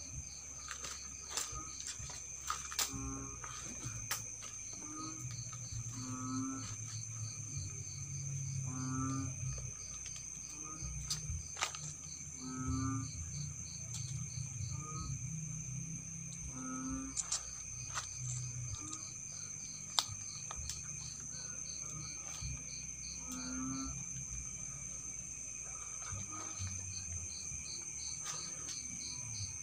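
Night insects: a steady high-pitched drone with crickets chirping in fast pulse trains. A short, low animal call repeats every few seconds, over low rumbling and scattered clicks from moving through the brush.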